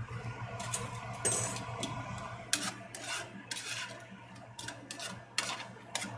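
A metal utensil clinking and scraping against a frying pan in a run of sharp knocks and short scrapes, over a steady low hum.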